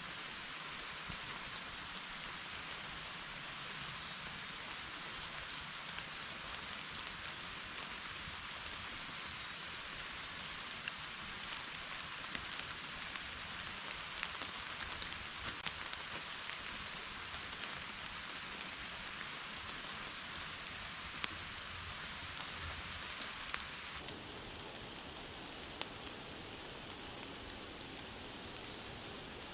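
Steady rain falling in a forest, an even hiss with occasional sharper drops ticking close by. The sound changes abruptly near the end, with more high-pitched hiss.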